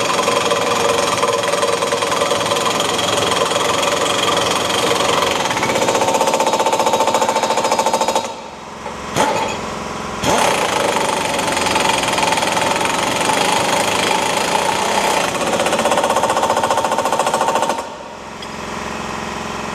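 Impact wrench hammering as it tightens the tow bar's mounting bolts. It runs in two long stretches, with a pause of about two seconds and a short blip between them, and stops near the end.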